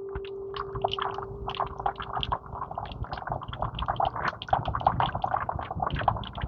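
A single chime note ringing and slowly fading away as one steady mid-pitched tone, gone about three seconds in. Over it runs a busy, uneven patter of small clicks and rustles, louder than the fading note.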